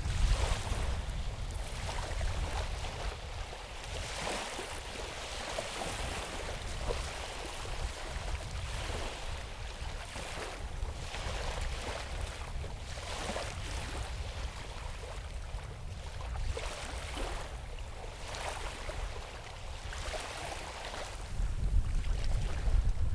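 Wind buffeting the microphone with a low rumble that strengthens near the end, over small waves washing in onto the fjord shore in irregular swells every second or two.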